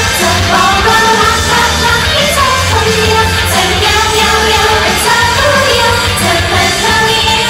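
Idol pop song performed live: female voices singing into microphones over loud backing music with a steady low bass, heard through the stage sound system.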